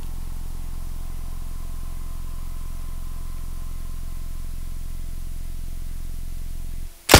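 A steady low hum, then near the end it cuts out and a single loud gunshot from a handgun fired through a makeshift plastic-bottle silencer.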